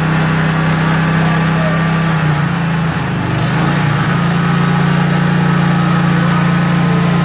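Engine of a portable band sawmill running steadily, its pitch dipping and wavering briefly between about two and four seconds in before settling back to a steady note.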